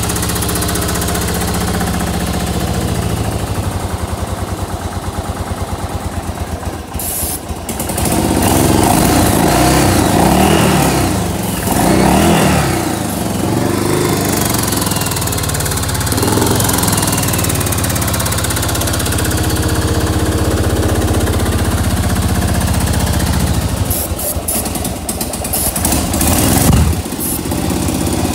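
Yamaha V-twin motorcycle engine idling with an even, pulsing beat, then revved up and down repeatedly from about eight seconds in.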